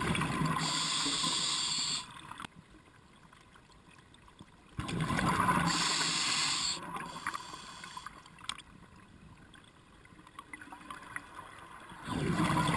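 Scuba diver's breathing through a regulator underwater: three bursts of exhaled bubbles, each about two seconds long, at the start, about five seconds in, and near the end, with quieter stretches between.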